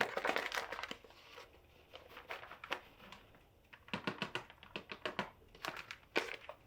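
Plastic flour bag crinkling and rustling as flour is poured out of it, a dense rustle at first and then scattered crackles and light clicks as the bag is handled.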